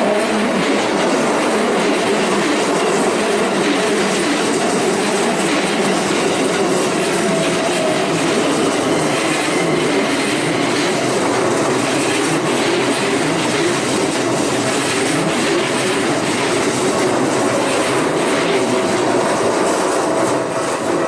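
Keikyu Line electric train passing close by over a level crossing, its wheels running loud and steady over the rails throughout.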